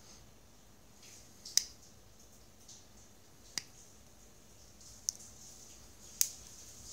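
Small side cutters snipping at a thin green polyurethane drive belt: four sharp clicks a second or two apart, the loudest about a second and a half in and near the end.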